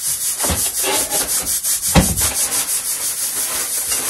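Kitchen things being handled: a few knocks, the loudest about two seconds in, and the rustle of a plastic bag of frozen peas, over a steady hiss.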